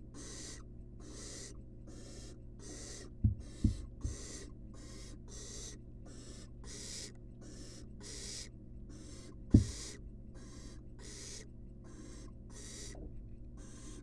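Barn owl nestlings giving rhythmic hissing begging calls, about two hisses a second. A few dull thumps a little after three seconds in and another near ten seconds stand out as the loudest sounds.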